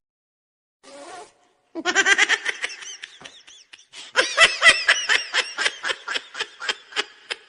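Laughter in quick repeated ha-ha pulses, about four or five a second, starting about two seconds in and running on, after a brief noisy rustle.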